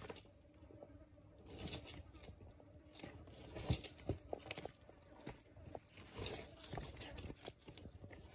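Komodo dragon biting and crunching on small prey held in its jaws as it forces it down its throat: irregular crunches and clicks, the sharpest a little under four seconds in.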